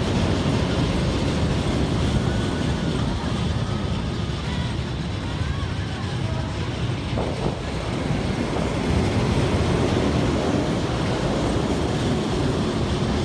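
Looping thrill ride running, a steady rumble with wind on the microphone, and faint distant voices of riders and the crowd.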